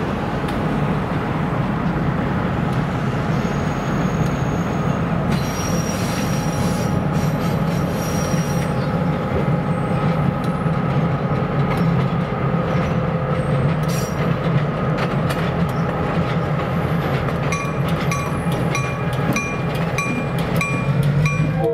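A diesel switcher locomotive hauling passenger coaches runs slowly across a steel deck bridge, its engine giving a steady low rumble. About five seconds in, a high wheel squeal lasts for about three seconds. Near the end, the wheels click over rail joints about twice a second.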